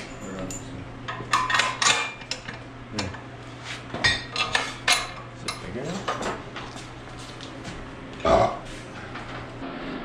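Irregular metal clanks and knocks of wrenches and a steel transmission stand as a 4L60E automatic transmission is unbolted from the stand and shifted around, over a low steady hum that stops near the end. About eight seconds in there is one short, loud burp-like vocal sound.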